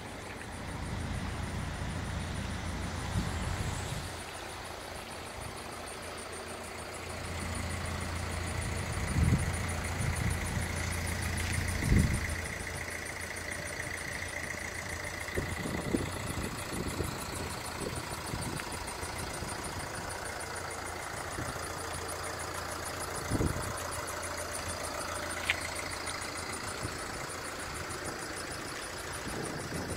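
Mercedes-Benz Sprinter van's engine idling steadily, with a few short thumps and knocks; the loudest thump comes about twelve seconds in. A faint high whine runs through the middle.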